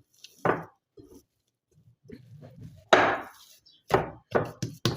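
A series of irregular knocks and thuds as soft bread dough is worked and divided on the kitchen work surface, the loudest about three seconds in and several quicker ones near the end.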